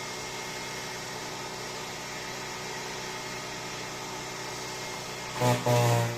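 A steady mechanical hum with a hiss over it, holding several fixed tones; about five seconds in, music with deep bowed strings begins.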